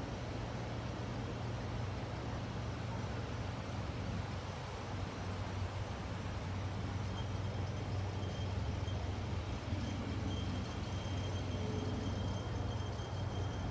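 Steady low hum of distant engine noise, with a faint thin high tone coming and going in the second half.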